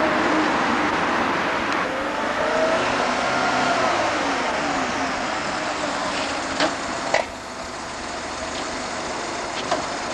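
Road traffic going by: a steady rush of car noise, with engine tones rising and falling in pitch as vehicles pass. Two short sharp knocks sound a little past halfway.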